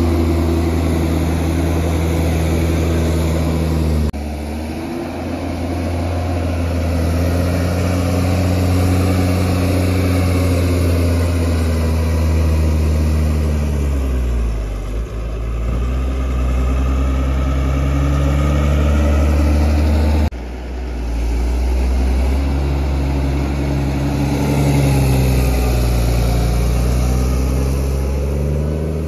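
New Holland T6090 tractor's six-cylinder diesel engine working as it pushes chopped maize silage across the clamp with a front blade, its engine note rising and falling with the load. The sound breaks off abruptly and resumes about four seconds in and again about twenty seconds in.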